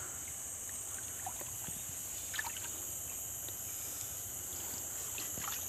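Faint sloshing and trickling of muddy water in a hand-dug gold-mining pit as hands work in it, with a few small splashes or knocks. A steady high-pitched hiss runs over it.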